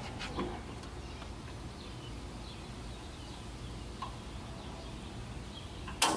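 Quiet background with faint scattered bird chirps while a propane griddle's control knob is held in the light position; a single sharp click near the end as the knob is turned.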